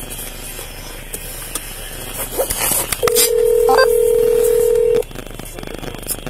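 Telephone ringback tone: one steady two-second ring, the sign that an outgoing call is ringing at the other end and not yet answered, with a couple of short higher beeps partway through.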